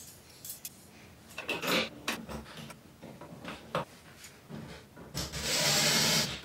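Light clicks and taps of a metal mounting bracket being fitted to an electrical box, then a cordless drill-driver starts about five seconds in and runs steadily, driving a screw that fastens the vanity-light bracket to the box.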